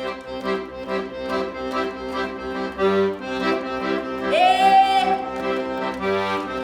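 Accordion music in a lively, steady rhythm, in the style of traditional Brazilian festa junina dance music. Just past the middle, a higher note slides up and is held for about a second.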